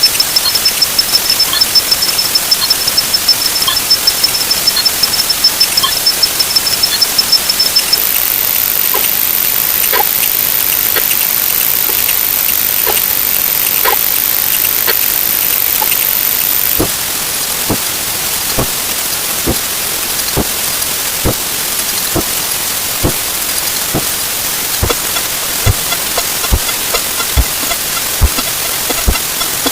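Timer sound effects played 64 times faster, blurring into a dense hiss like rain. A high rapid beeping runs for the first eight seconds, a very high steady whine follows until about seventeen seconds, and then separate clicks and knocks stand out more and more often.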